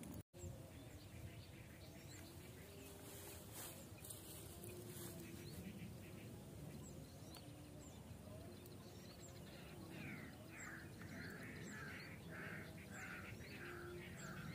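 Faint open-air quiet with light high chirps. From about ten seconds in, an animal starts calling over and over, about two calls a second.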